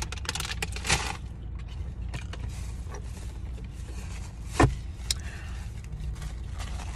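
Quiet eating sounds, chewing with crackly rustles in the first second, over a steady low rumble inside a car, with one sharp click a little past the middle.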